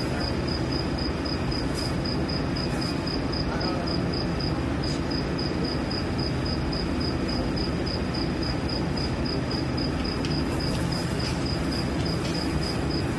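Steady low machinery hum, with a cricket-like insect chirping in a rapid, even run of high-pitched pulses.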